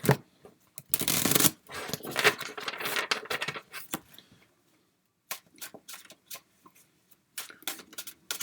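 A tarot deck being shuffled by hand, a dense run of rustling card slaps about a second in, then a short pause and scattered sharper card taps and flicks.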